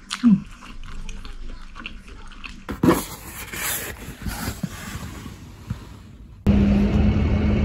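Rustling and handling noise as a window curtain is pulled aside. About six and a half seconds in, it gives way abruptly to a louder, steady outdoor hum with a constant low drone.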